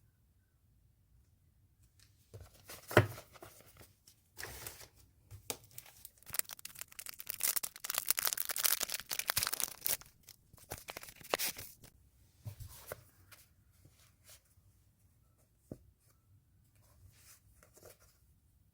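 Packaging being torn open by hand, with rustling and crinkling, a sharp knock about three seconds in and the longest stretch of tearing from about six to ten seconds in.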